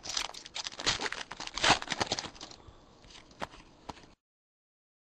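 Crinkly wrapper of a basketball trading-card pack torn open, a dense crackling rustle for about two and a half seconds, followed by a few faint flicks as the cards are handled. The audio then drops out to dead silence a little after four seconds in.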